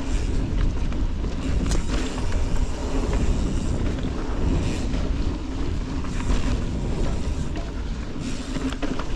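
Canyon Spectral mountain bike riding fast down a dirt forest singletrack: a steady rumble of knobby tyres rolling over the dirt, with wind noise on the microphone and a few sharp clacks from the bike over bumps.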